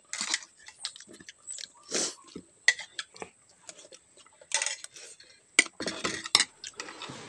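Metal spoon clinking and scraping against a ceramic plate in a series of short, irregular clicks, mixed with eating sounds: chewing and sipping of hot soup.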